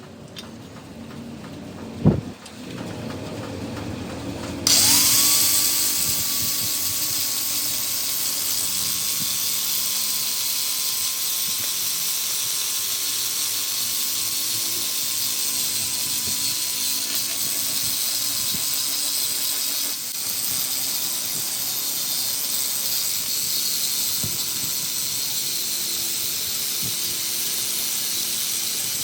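A single knock, then about five seconds in a power tool starts suddenly, its whine rising quickly and then holding a steady pitch over a loud hiss for the rest of the time.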